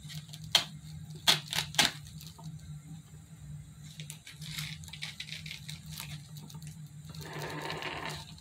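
Handling of craft pieces: a few sharp clicks and taps in the first two seconds as fake treats on sticks are pulled out of and pushed into a popcorn box, then softer fumbling, and a longer rustle near the end. A steady low hum runs underneath.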